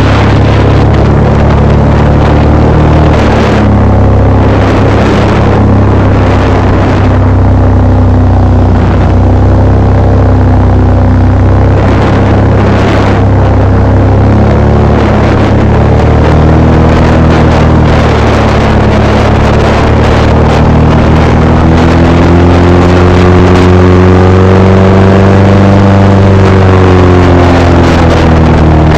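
Airboat's engine and air propeller running loud and continuous, the pitch sagging and rising with the throttle, most noticeably near the end.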